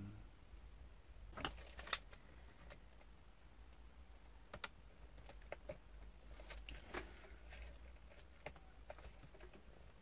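Scattered small clicks and taps of hands handling laptop cables and plastic parts while fitting a new screen cable to the motherboard, with the two loudest clicks about one and a half and two seconds in.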